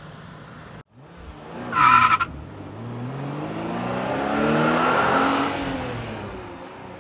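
A short, loud tire squeal about two seconds in, then a car engine accelerating, its pitch rising as the sound swells and then fades as it drives past.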